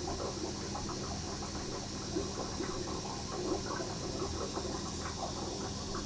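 Steady low hum and hiss with faint, irregular pattering or trickling throughout.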